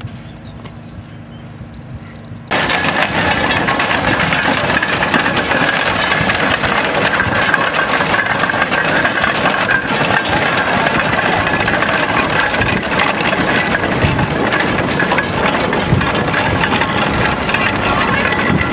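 A fainter low engine hum, then, from about two and a half seconds in, a loud, steady hissing with a faint high tone in it from a miniature steam traction engine running as it drives along.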